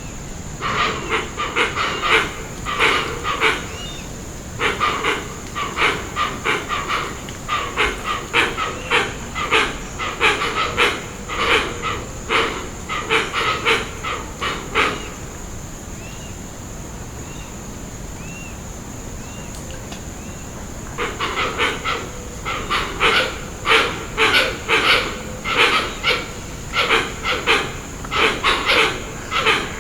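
Hoatzin giving harsh, rasping, wheezy calls in rapid clusters. The calls stop for about six seconds midway, when a few faint high chirps are heard, then resume. A steady high thin tone sounds in the background throughout.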